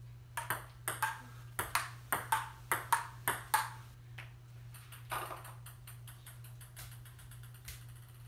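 Table tennis rally: about a dozen sharp celluloid-ball clicks off paddles and the table, three or four a second. The rally stops after about three and a half seconds. Near the fifth second one more hit comes, then a ping pong ball bouncing with smaller, quicker taps until it settles.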